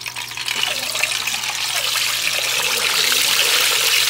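Hot cooking oil sizzling as a piece of raw meat is lowered into it with tongs for deep-frying. The sizzle grows louder over the first couple of seconds, then holds steady.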